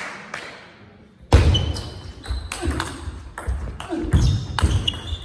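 A table tennis serve and rally: after a short hush for the serve toss, the celluloid ball clicks off the bats and table in quick alternation, several hits a second. Players' feet thud on the hall floor, with short shoe squeaks.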